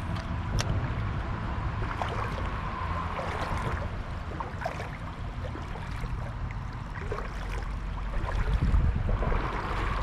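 Shallow creek water running and washing, under a steady low rumble, with a few faint clicks.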